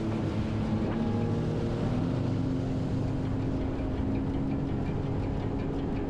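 An engine running steadily at a constant speed: an even drone with a steady low hum.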